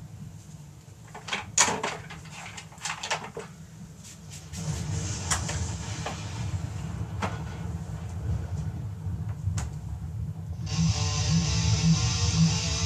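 A few sharp clicks and knocks of a turntable being handled as the record is cued, then a steady low hum with faint clicks. About ten seconds in, loud heavy-metal electric guitar music from the vinyl record starts playing.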